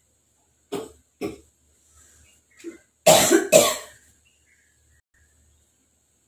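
A person coughing: two short coughs about a second in, a faint one, then two louder coughs in quick succession near the middle.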